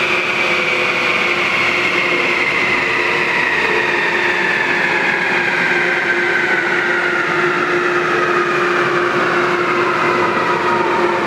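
Toyota Fortuner on a chassis dynamometer coasting down after a run: a loud whine from the spinning wheels, drivetrain and rollers falls slowly and steadily in pitch, over a constant hum.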